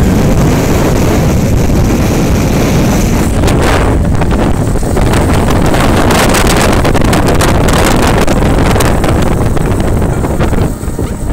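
Heavy wind rushing and buffeting over the microphone of a camera riding on a moving motorcycle, with road and engine noise under it. It eases off near the end.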